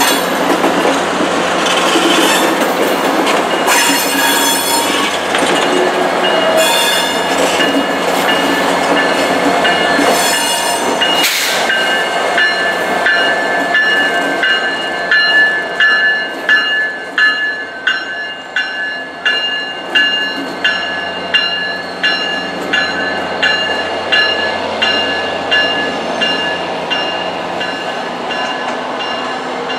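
Train passing slowly on a curve: the steel wheels squeal against the rail in repeated high screeches for the first ten seconds or so. Then comes a steadier squeal with a regular clicking of wheels over rail joints, about one and a half clicks a second, as the diesel locomotives roll by.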